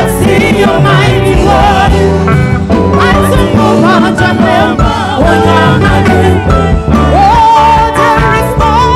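A woman singing a gospel worship song into a microphone, backed by a live band with guitar and drums. Near the end she holds one long note with a wavering vibrato.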